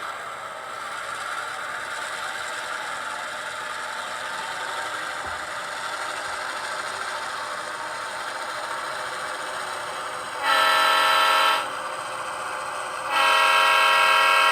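HO-scale Athearn Genesis GP38-2 model locomotive's sound decoder playing a diesel engine idling through its small onboard speaker, then two chime horn blasts near the end, the first about a second long and the second longer.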